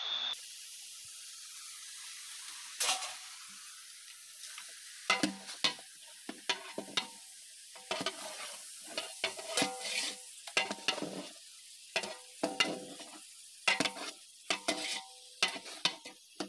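A long metal spatula scrapes and knocks against a large metal cooking pot as chopped onions and shallots are stirred in hot coconut oil, over a faint sizzle. After a single stroke early on, the scrapes come thick and irregular from about five seconds in, some with a short metallic ring.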